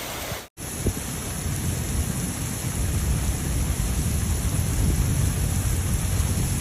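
Heavy rain falling steadily, with a low rumble underneath. The sound cuts out for a moment about half a second in.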